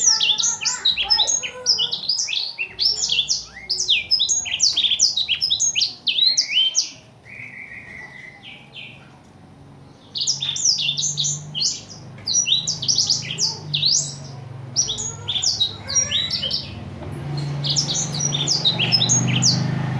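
Black-throated canary (blackthroat) singing in fast runs of high, sharp chirps and trills, with a softer pause of a few seconds about seven seconds in. A low steady hum rises beneath the song in the second half.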